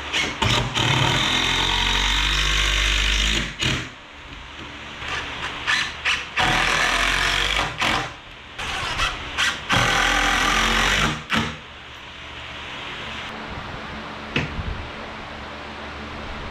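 Yellow DeWalt cordless driver driving screws into wooden framing: several runs of one to three seconds with short blips between, the motor's pitch shifting as each screw goes in. The driving stops about two-thirds through, leaving a steady low hiss and one sharp knock near the end.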